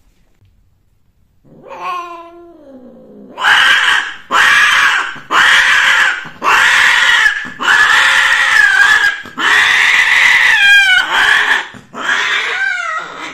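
A female Persian cat caterwauls while being mated. There is a falling cry about a second and a half in, then a run of about eight loud, long, harsh yowls with short breaks between them.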